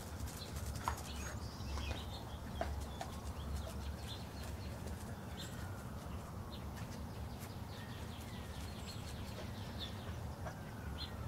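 Outdoor ambience: small birds chirping with many short high notes over a steady low rumble, and a distant siren whose pitch slowly rises and falls.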